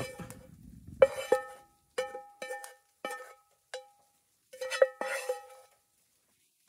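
Metal frying pan knocked and scraped with a spatula as scrambled eggs are emptied out of it, giving a series of irregular knocks, each ringing briefly with the same metallic tone.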